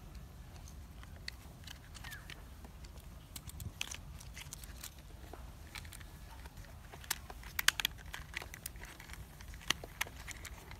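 Small plastic toy auto rickshaw parts clicking and tapping as they are handled and pressed together, the body being fitted onto its wheeled chassis, with a cluster of sharper clicks about seven to eight seconds in.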